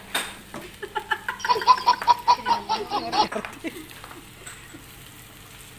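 A person laughing in a quick run of high ha-ha pulses, about a second in, lasting about two seconds.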